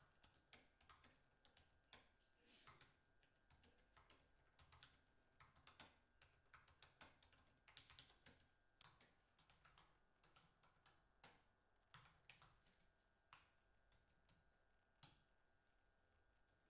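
Faint typing on a laptop keyboard: irregular key clicks in quick runs separated by short pauses.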